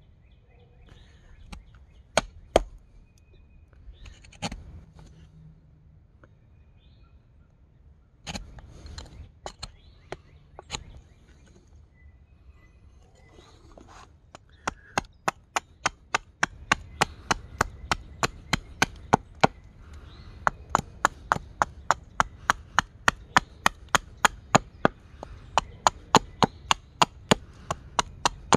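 Carving axe chopping into a cherry spoon blank against a wooden chopping block. A few scattered strikes at first, then from about halfway a quick, steady run of light chops, about three a second.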